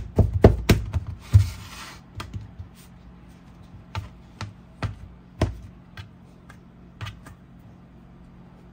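Stainless steel bench scraper chopping baked potato, its blade tapping against the plate. A quick cluster of taps and a short scrape come first, then single taps about every half second to second.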